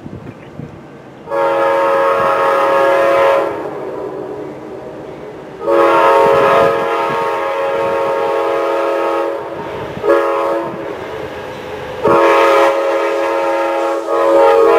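Amtrak GE Genesis passenger locomotive's multi-chime air horn sounding as the train approaches: two long blasts, a short one, then a long one that grows louder as the train nears, in the long-long-short-long pattern of a grade-crossing signal. The rumble of the oncoming train runs underneath.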